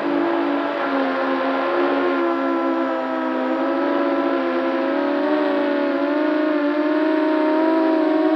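Quadcopter's brushless motors and propellers whining in flight. Several close tones drift up and down together as the throttle changes, rising a little in pitch and loudness in the last few seconds.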